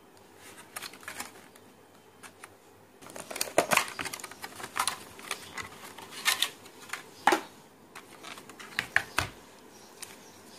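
Rigid clear plastic clamshell packaging being handled and opened, giving irregular sharp clicks and crackles, with a paper leaflet rustling as it is pulled out. The handling grows busier about three seconds in.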